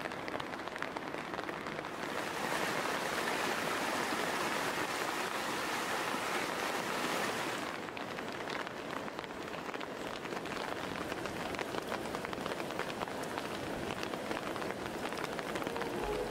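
Heavy rain falling on vegetation and puddles: a dense, steady patter of drops. It grows louder and brighter about two seconds in and turns duller about halfway through.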